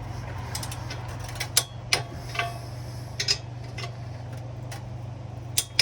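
Hand tools clicking and clinking on the header bolts: a handful of short, sharp metallic clicks at irregular intervals, the two loudest close together about a second and a half in, over a steady low hum.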